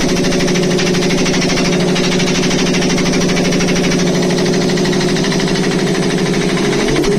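5 hp reciprocating piston air compressor running on load with a fast, steady pumping rhythm; its pitch shifts briefly near the end.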